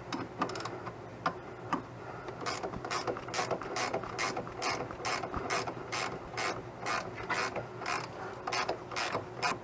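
Hand ratchet wrench clicking as a nut is run down on a sway bar end link bolt: a few loose clicks, then steady strokes at about three a second from a couple of seconds in.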